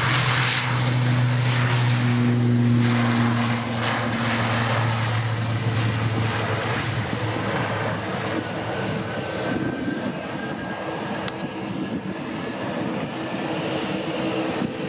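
ATR 72-600 twin turboprop engines at takeoff power on the departure roll: a steady low propeller drone over a broad engine roar. The drone fades after about six seconds as the aircraft pulls away, and a faint rising whine comes in later.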